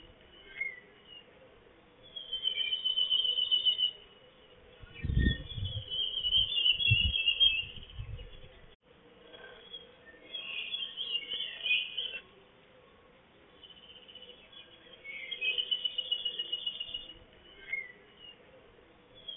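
High, pulsed trilling calls of a small wild animal, in bursts of one to two seconds repeating every few seconds. A few low thumps come about five to eight seconds in.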